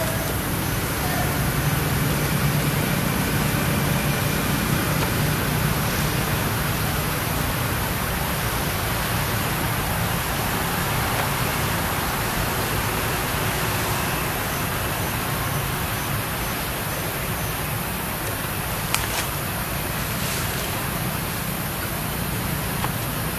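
Steady outdoor background noise: an even hiss with a low hum, faint high evenly spaced pips twice, and a single sharp click near the end.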